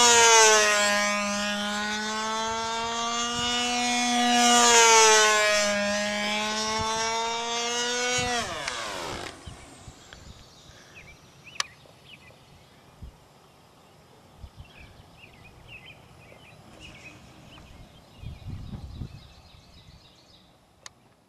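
Electric control-line model airplane's motor and propeller whining, the pitch and loudness swelling and dipping about every four and a half seconds as the plane circles the pilot. About eight seconds in, the motor winds down with a falling pitch and cuts out, leaving faint outdoor quiet with a short low rumble near the end.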